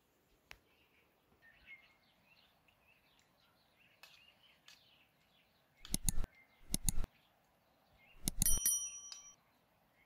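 Metal spoons clinking and scraping against steel plates in three short bursts in the second half, the last leaving a brief ringing tone. Faint bird chirps in the background.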